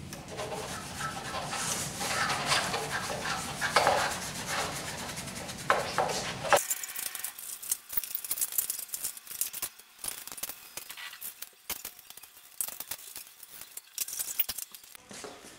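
Wet rag scrubbing and wiping an ATV's plastic fender panel, with water handled in a metal bowl and an occasional clink of the bowl. The rubbing comes in short uneven strokes, and a low background hum drops away about six and a half seconds in, leaving sparser rubs and clicks.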